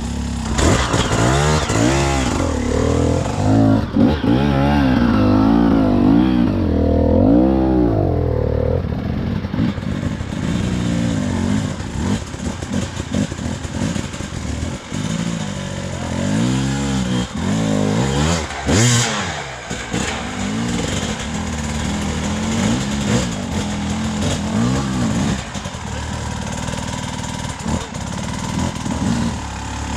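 Off-road motorcycle engine revving up and down again and again, the pitch rising and falling in quick surges, as the bike works its way up a rough trail.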